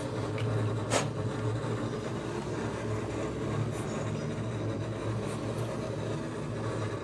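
Steady low hum of a running vehicle engine, with one sharp click about a second in.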